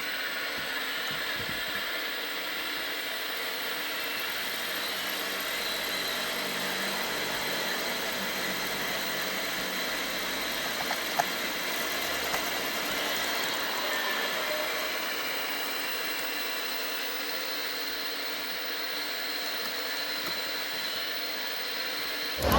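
Steady running of radio-controlled model trucks and construction machines, a constant mechanical hum with faint high whines, and a single sharp click about eleven seconds in.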